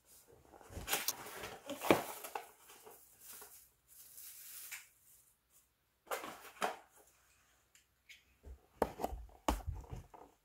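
Cardboard product box and plastic packaging being handled and opened: scattered rustles, scrapes and light knocks, loudest about two seconds in.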